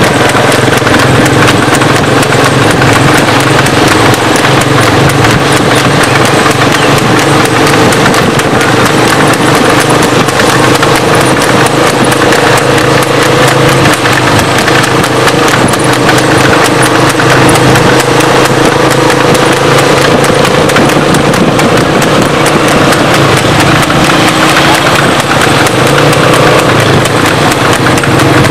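Hooves of a driving horse clip-clopping in a continuous quick run, over a steady low hum.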